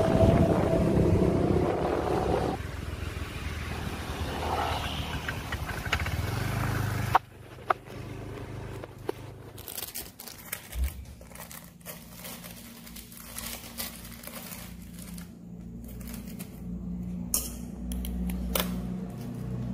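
Small motorbike being ridden, its engine running under wind noise on the microphone; about seven seconds in this cuts off sharply to quiet kitchen sounds: scattered clicks, knocks and rustling of things handled close to the microphone.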